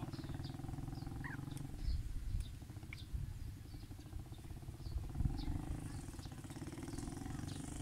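A steady low rumble with a fast pulsing texture, and small birds chirping briefly now and then over it.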